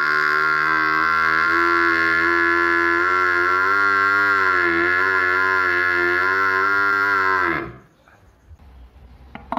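Young water buffalo giving one long, unbroken call with a gently wavering pitch, which stops about three-quarters of the way through.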